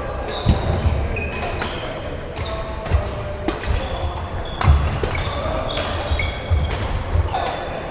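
Badminton doubles rally: rackets striking the shuttlecock with sharp clicks, shoes squeaking briefly on the court floor, and low thuds of footwork and lunges.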